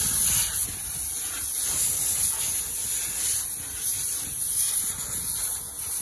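High-pressure water wand spraying a steady jet with a high hiss into a concrete pump hopper, blasting out the loosened sand and concrete packed under the back bearing during washout. The spray comes on abruptly at the start.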